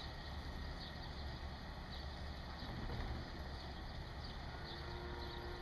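Calves sucking milk from bottle teats: faint, irregular small slurps over a steady low rumble, with a short held tone near the end.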